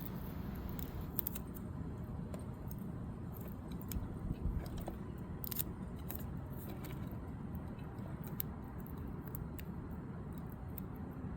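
Scattered small clicks and clatters of objects being handled, a little denser around the middle, over a steady low rumble.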